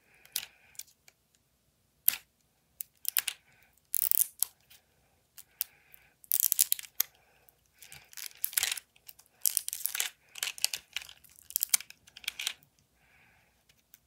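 Plastic wrapping crinkling and tearing as fingernails pick and peel it off a plastic Mini Brands capsule ball, in irregular clusters of crackles with short pauses between tugs; the wrap is stubborn to remove.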